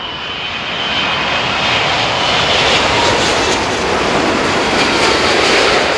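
Jet airliner flying low overhead on its approach to land, a dense engine rush that swells to a peak and starts to ease near the end, with a high whine at first and a slightly falling tone as it passes.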